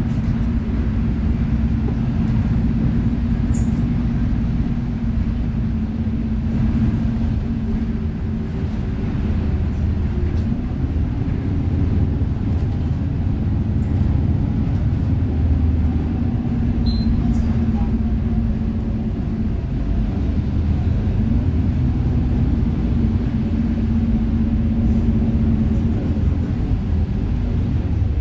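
Cabin sound of a Seoul city bus under way: a steady low engine drone and road rumble. The engine tone drops away and comes back twice as the bus changes speed, with a few faint clicks and rattles.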